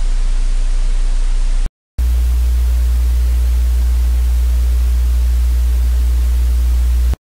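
Loud steady static hiss with a deep electrical hum, as from a cheap webcam microphone. It cuts out completely for a moment about two seconds in and again near the end, and after the first break the hum is higher-pitched.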